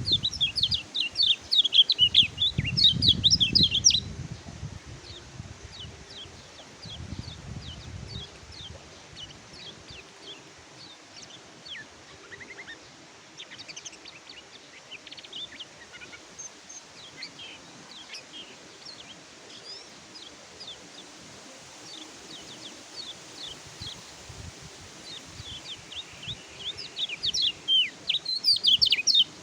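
Kecial kuning (yellow white-eye, pleci) singing: a fast, twittering run of high chirps and trills. It is loud for the first few seconds, goes on more softly through the middle, and swells loud again near the end. A low rumble sits under the opening seconds.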